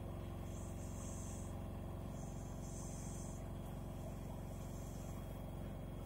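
LG FV309N front-loading washing machine running mid-wash with water and laundry in the drum: a steady low hum, with a faint high whine that comes in for about a second at a time, three times.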